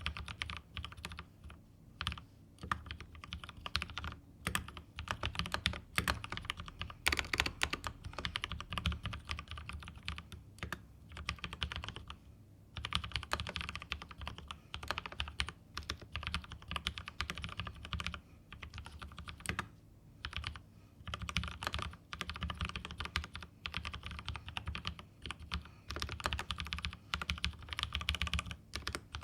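Typing on a mechanical keyboard with 'Holy Razer' frankenswitches (Halo True stems in Kailh Razer Green housings, Krytox-lubed, 63.5 g springs) under GMK keycaps: a fast, steady run of keystrokes, with short pauses about twelve seconds in and again near twenty seconds.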